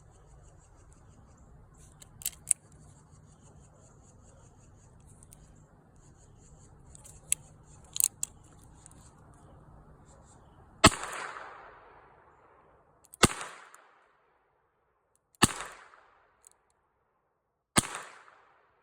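H&R 929 .22 LR revolver firing four shots, a little over two seconds apart, each with a short ringing tail. Before the shots come several sharp metallic clicks.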